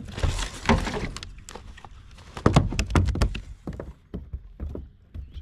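A flounder flopping in a landing net on a kayak: a wet splashing rush at the start, then a run of sharp knocks and heavy thumps against the kayak, the loudest a little past the middle.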